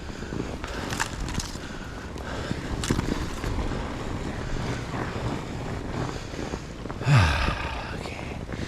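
Fat bike riding over a trail, heard from a bike-mounted action camera: wind rushing over the microphone, tyre and trail rumble, and scattered rattles and clicks from the bike. A louder burst comes about seven seconds in.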